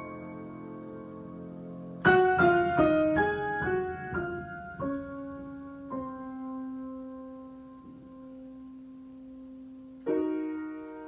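Solo piano improvisation: a held chord, then a loud chord about two seconds in followed by a run of single notes that slows down and settles on a low note ringing for several seconds, before a new chord strikes near the end.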